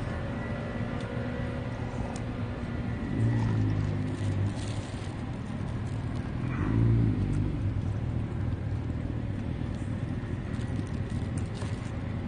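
Road traffic rumble with the engine hum of passing vehicles, swelling twice: about three seconds in and again about seven seconds in.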